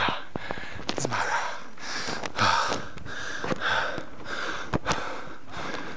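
A man panting hard from uphill exertion: quick, heavy breaths in and out, about two a second, some with a short voiced gasp. A few sharp clicks come in between.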